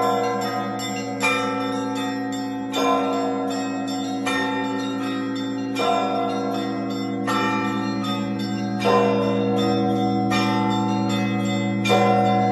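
Church bells ringing: a fresh stroke about every one and a half seconds, over a steady low hum of bells left sounding between strokes.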